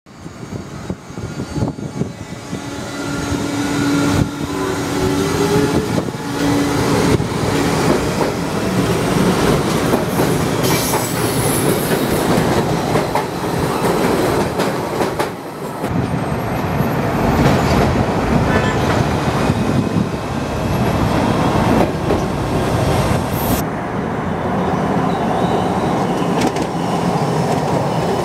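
Inside a Budd-built Metrorail rapid transit car as it rides along: steady rolling wheel and track noise with intermittent rail clicks, building up over the first few seconds. A short low tone sounds about four seconds in.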